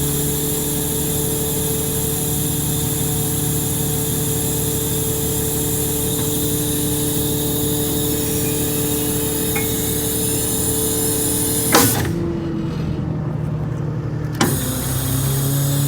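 Ford F750's 6.7 Cummins diesel engine running at a steady speed with a steady hum. About 12 s in a click is followed by a muffled stretch, and a second click comes about two and a half seconds later.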